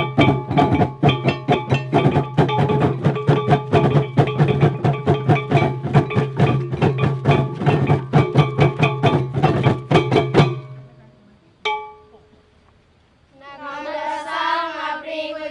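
Percussion music: rapid, even strikes with ringing tones over a steady low drone, stopping about two-thirds through, followed by one last ringing strike. Near the end a single voice starts singing a melody.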